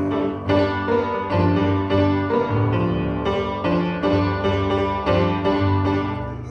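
Piano playing a rhythmic run of chords and bass notes, struck roughly twice a second, with no singing; it eases off a little near the end.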